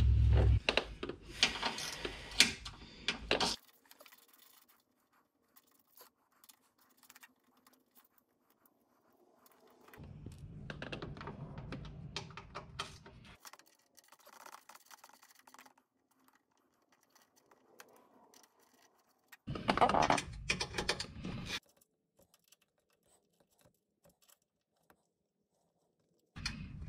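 Intermittent clicks, scrapes and handling noise from hands working on a car's plastic undertray, in a few bursts of two to three seconds separated by long stretches of near silence.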